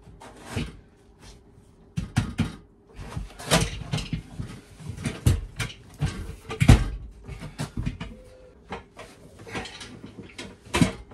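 Irregular clunks, knocks and clatters from a Grohe steel wall-hung toilet frame being handled and adjusted for height. Several sharp knocks stand out, the loudest about two-thirds of the way through.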